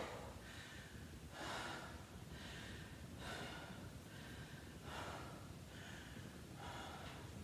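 A woman breathing hard, in and out, about once a second: out of breath and recovering from exercise.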